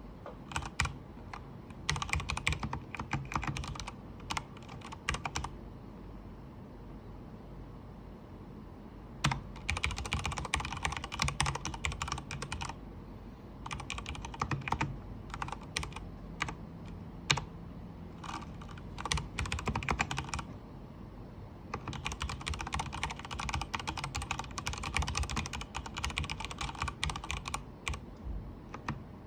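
Typing on a Durgod Fusion 65% mechanical keyboard with Cherry MX Red linear switches: fast runs of keystroke clatter broken by pauses of a few seconds, with single strokes in between.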